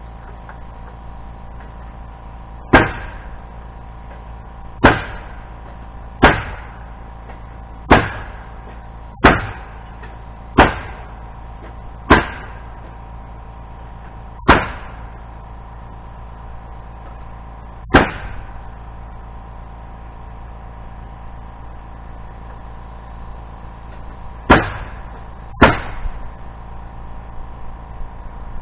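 A run of eleven sharp, single impacts in carpentry framing work, like nails or timber being struck, each with a short ringing tail. They come one to two seconds apart, with a longer gap before the last two.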